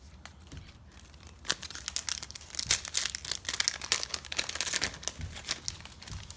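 Foil wrapper of a Match Attax trading-card pack being torn open and crinkled by hand: a dense crackling that starts about a second and a half in and dies down near the end.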